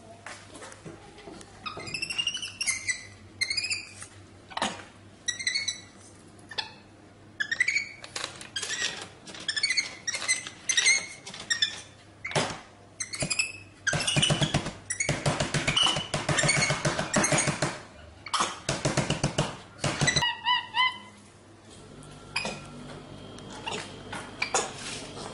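A drinks vending machine being worked by a capuchin monkey: clinks, clicks and clatter from coins, buttons and the machine, with short high squeaks now and then, and a denser stretch of rattling in the middle.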